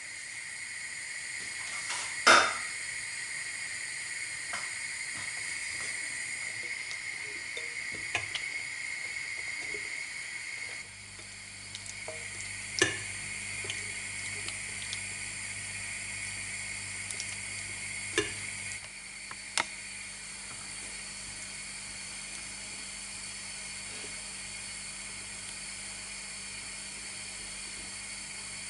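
A spatula stirs melting chocolate and butter in a glass bowl set over a pot, against a steady low hiss. The spatula knocks against the glass a few times, the loudest knock about two seconds in.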